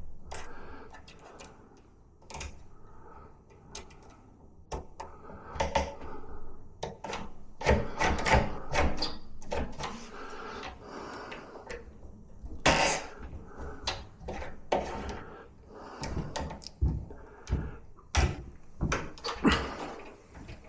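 Irregular metallic clicks, knocks and rattles of a brass door latch and handle being handled and fitted into a door, with the loudest knocks about a third of the way in and past the middle.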